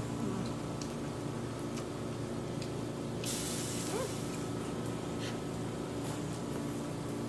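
Vegetable slices sizzling faintly on a hot grill pan over a steady electrical hum, with a brief louder burst of hiss about three seconds in and a few light clicks.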